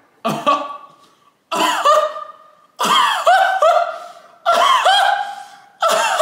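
A man wailing in five loud, high-pitched cries in a row, each starting sharply and trailing off.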